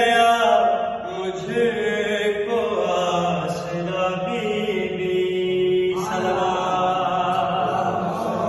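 A man's voice reciting an Urdu manqabat, a devotional poem, in a slow chanted melody with long held notes. A new phrase begins about six seconds in.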